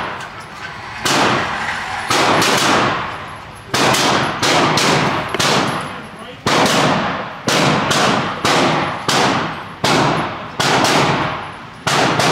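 Gunfire at an indoor shooting range: a string of about eighteen single shots at uneven spacing, some in quick pairs, each one echoing and fading off the range walls.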